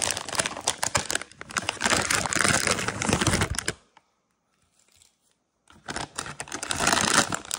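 Plastic packaging bags crinkling as parts are handled in a cardboard box, with a break of near silence for about two seconds in the middle.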